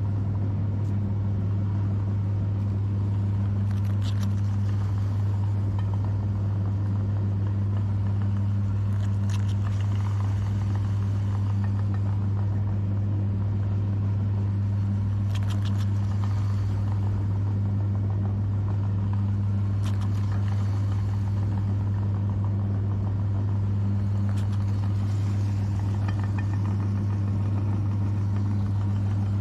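Electric meat grinder motor running with a steady low hum, with a few faint clicks every several seconds.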